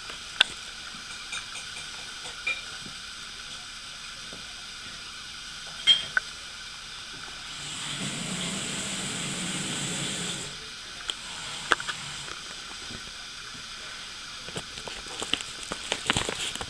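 A kitten moving about in a woven plastic shopping bag: light crackles and rustles of the bag over a steady hiss. In the middle there is a louder, fuller rustling noise for about three seconds while her face is up against the camera. The crackling grows busier near the end.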